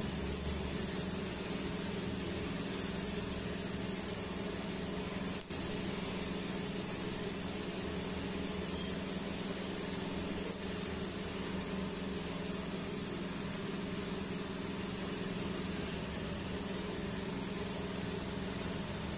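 TIG welding on stainless steel pipe: a steady hiss with an electrical hum from the arc and the welding machine, with one brief break and click about five seconds in.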